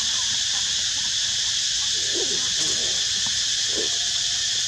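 Macaques giving short coo-like calls that rise and fall in pitch, a cluster about two seconds in and another near the end, over a steady high-pitched drone of forest insects.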